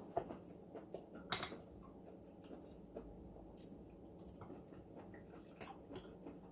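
Faint eating sounds: scattered small clicks and taps of utensils and chewing, a few of them louder.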